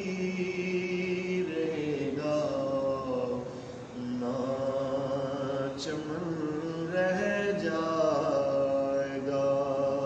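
A man singing an Urdu devotional verse solo, drawing out long wavering notes that slide between pitches.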